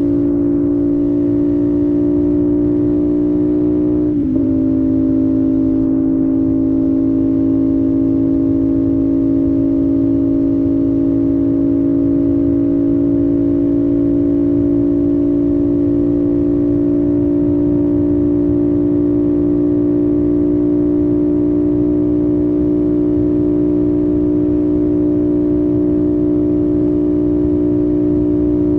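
2025 CFMOTO 450SS's parallel-twin engine pulling at steady cruising speed. About four seconds in, the pitch drops sharply with an upshift, then the engine note holds steady.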